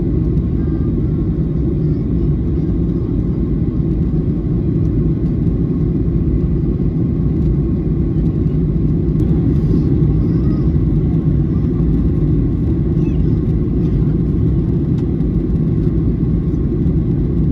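Steady low rumble of a jet airliner in flight, its engines and rushing air heard inside the passenger cabin.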